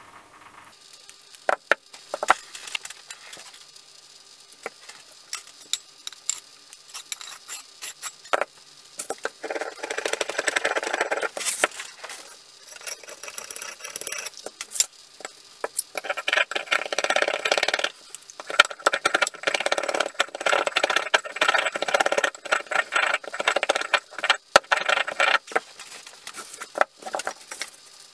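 Handling noise from a steel axe head and a wooden axe handle: scattered knocks, then long stretches of quick scraping and rubbing as the head is worked against the handle.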